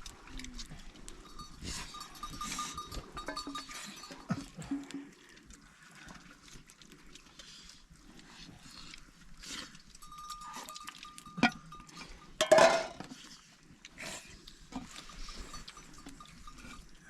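Flock of sheep and goats: bells clinking on and off, with scattered animal calls and one louder call about twelve seconds in.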